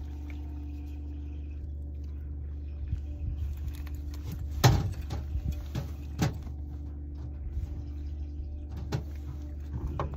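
Boat motor running steadily at trolling speed, a low even hum, with a few sharp knocks over it, the loudest about halfway through.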